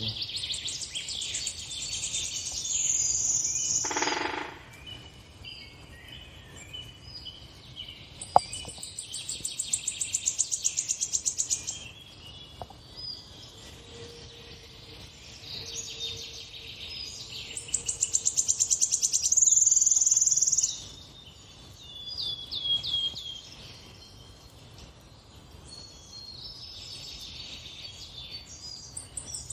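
Songbirds singing from the bird video on the television: repeated bursts of fast, high trills and chirps, each a few seconds long, with a single sharp click about eight seconds in.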